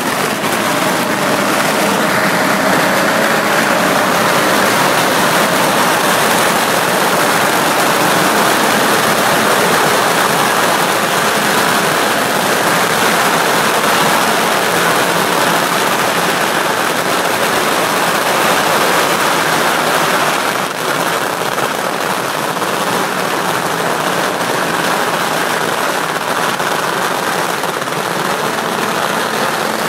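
Strings of firecrackers going off without a break: a dense, loud crackle that dips briefly about two-thirds of the way through.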